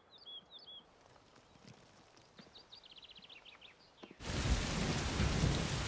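Small birds chirping faintly: a few short chirps at the start and a quick trill around the middle. About four seconds in, a loud, steady outdoor rushing noise cuts in abruptly and becomes the loudest sound.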